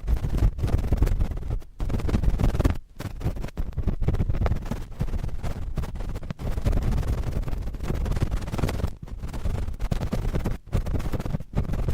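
Cotton swab scratching and rubbing directly on a microphone: close, continuous scratching with a heavy low rumble, broken by short pauses every second or two.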